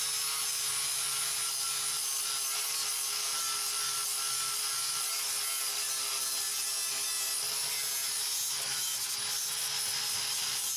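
Electric power tool running at a steady speed, its motor giving a steady whine over a constant abrasive hiss, as it strips paint from a car's sheet-metal firewall.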